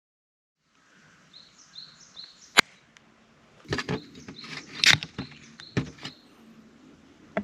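Small birds chirping in short repeated notes, with one sharp click about two and a half seconds in and a cluster of louder clicks and knocks in the middle.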